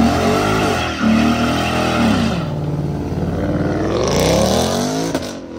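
Ford Mustang convertible's engine revving hard, its pitch climbing and dropping several times as it is launched with the rear tyres spinning and smoking. About four seconds in, a hissing rush of tyre noise rises over the engine.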